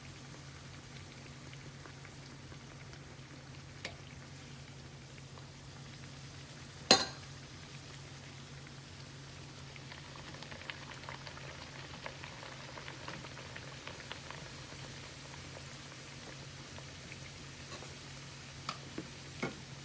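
Dough bakes frying in hot vegetable oil: a soft, steady sizzle with scattered small crackles, over a steady low hum. One sharp knock about seven seconds in is the loudest sound, with a few smaller clicks near the end.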